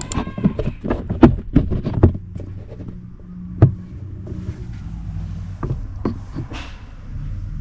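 Plastic clicks and knocks of a car's glove box being squeezed in at both sides past its stops and let down, a quick run of them at first and then a few single clicks. A low steady hum lies underneath.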